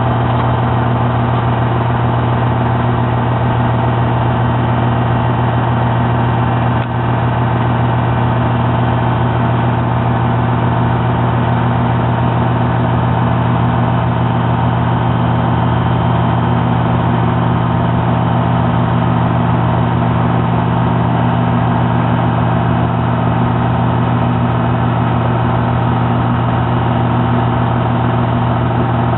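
An engine running at a steady idle, an even, unchanging drone.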